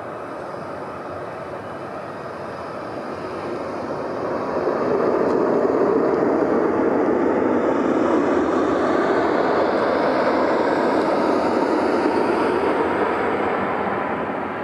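Jet engines of a taxiing Boeing 737 at low taxi power. The steady rushing noise grows louder about four seconds in as the plane comes past, stays up, then eases near the end with a faint whine falling in pitch.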